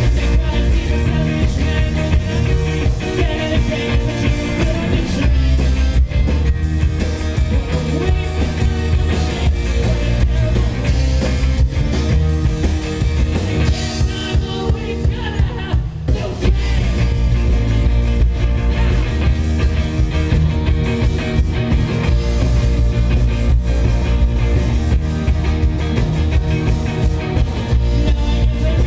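Indie rock band playing a song live through a stage PA: electric guitars, bass and drums, with a heavy low end. The music breaks off for a moment a little past halfway, then carries on.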